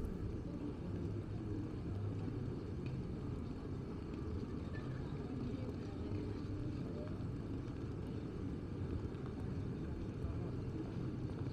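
Steady low rumble of city street ambience, like traffic heard along a shopping street, with no distinct events standing out.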